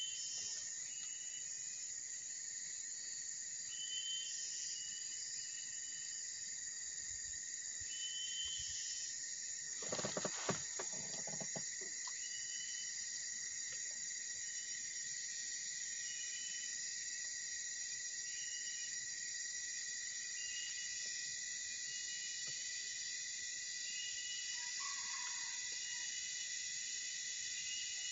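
Steady high-pitched insect chorus with short chirps every second or two. About ten seconds in there is a brief clatter of knocks.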